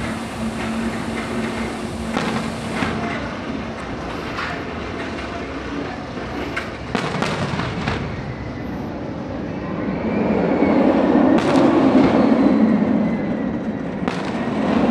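Fireworks going off with occasional sharp booms, and a steel inverted roller coaster train running on its track with a rumble that builds and fades over a few seconds in the second half, then comes up again near the end.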